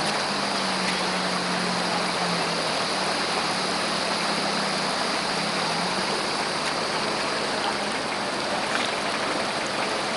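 A steady rushing noise with the low hum of an off-road 4x4's engine underneath, the hum wavering in pitch and fading out about two-thirds of the way through.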